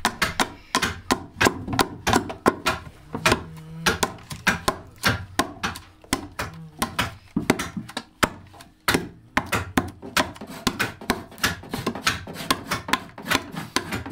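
Hand adze (keser) chopping into a mulberry-wood saz body as it is hollowed out: a fast, uneven run of sharp wooden chops, about four a second, with a short lull a little past the middle.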